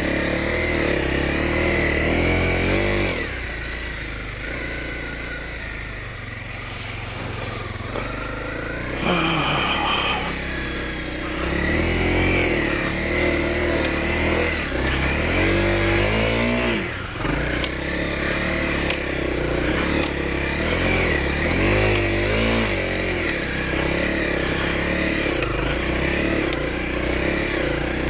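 Dual-sport motorcycle engine riding under load, its pitch climbing and dropping several times as it revs up through the gears, with a few sharp revs.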